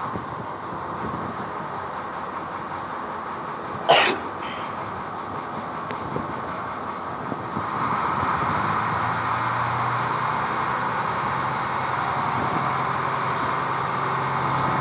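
A ship's engine hums steadily under a constant wash of noise, with a single sharp knock about four seconds in. From about eight seconds on the hum gets a steady low note and the whole sound grows louder.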